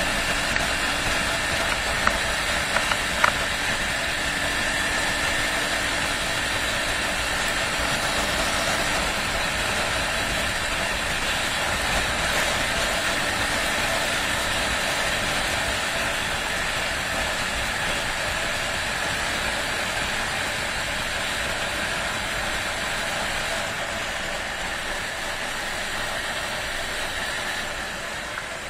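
Honda XR250's single-cylinder four-stroke engine running at a steady cruise while riding, mixed with wind rushing over the microphone. A few sharp clicks come two to three seconds in, and the sound eases off a little near the end.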